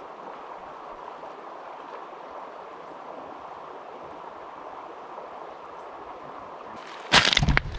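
River water rushing steadily over its bed. Near the end, a sudden loud burst of noise cuts in over it.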